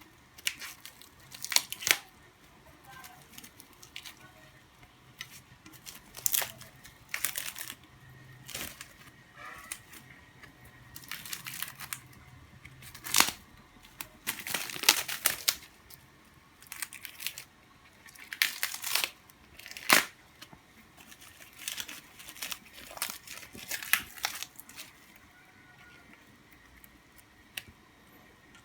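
Packaging being torn and crinkled by hand in irregular rustling bursts as wrapping is stripped off a newly unboxed bow riser.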